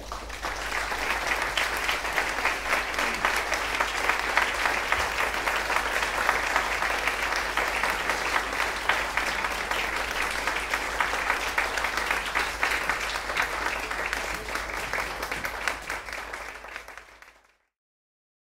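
Audience applauding steadily, a dense patter of many hands clapping that cuts off suddenly near the end.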